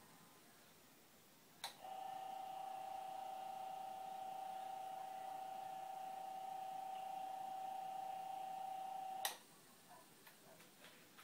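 Electric fan motor, with no blade fitted, switched on with a sharp click about two seconds in and running with a steady whine for about seven seconds, then switched off with another click. It is the freshly rewired motor on test, running as it should.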